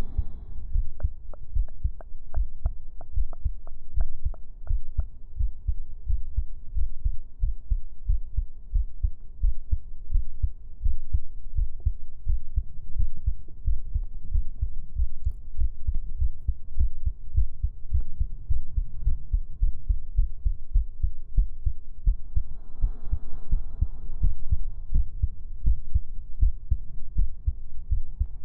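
Amplified heartbeat, fast and regular at about three beats a second, over a faint steady hum.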